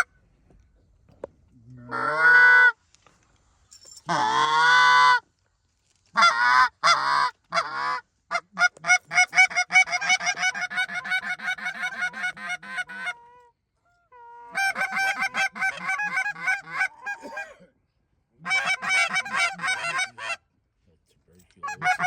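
Goose honking: two long drawn honks, then fast, even runs of short clucking honks, several a second, in bursts of a few seconds with short pauses.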